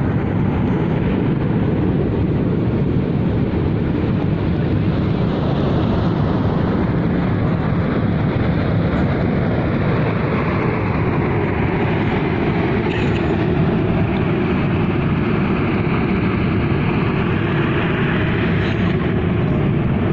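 A loud, steady rumbling roar that the uploader calls a strange sound coming from a mountain. A higher hiss within it slowly dips and then climbs again in pitch.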